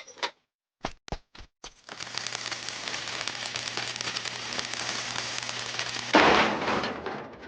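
A few sharp clicks, then a steady crackling hiss that grows suddenly louder about six seconds in and then fades away.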